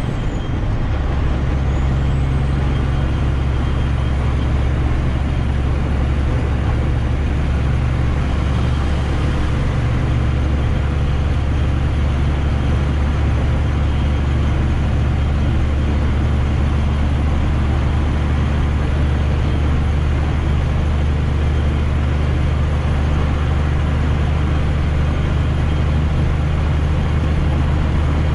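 Semi truck's diesel engine running steadily under way, a constant low drone with road noise over it.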